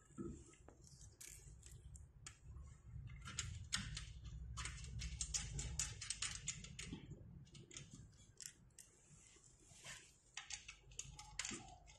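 Faint, irregular light metallic clicks and ticks as a small screw and washer are handled and turned in by fingers, over a low rumble.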